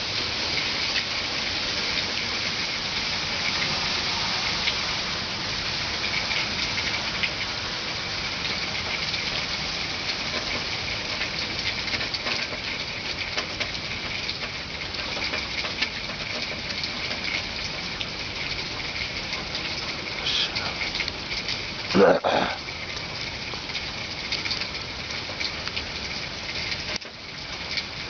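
Steady rain patter with a thin, steady high tone running underneath. About three-quarters of the way through, a short, louder sound with a rising pitch stands out over the rain.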